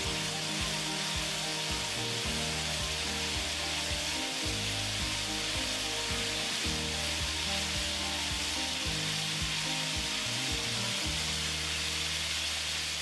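Flour-coated chicken pieces deep-frying in a skillet of hot oil: a steady, busy sizzle as more pieces are laid in. Background music with changing low notes plays underneath.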